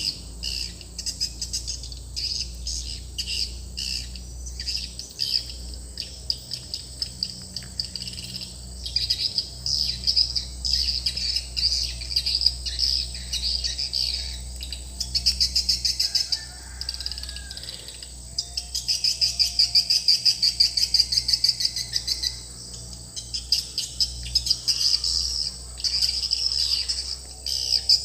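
Swiftlet calls played as the lure sound of a swiftlet house: rapid trains of high twittering chirps coming in pulsing runs, over a steady low hum.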